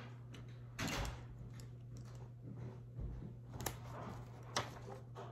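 Plastic Lego pieces being handled and snapped together: a few sharp clicks with soft rustling between them, over a steady low hum.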